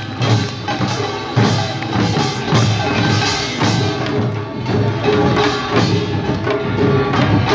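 Korean pungmul percussion band playing a steady, even beat: buk barrel drums and sogo hand drums struck together, with metal gongs ringing over them.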